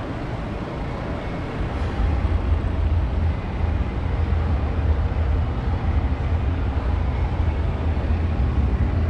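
Steady low mechanical hum and rumble, growing louder about two seconds in.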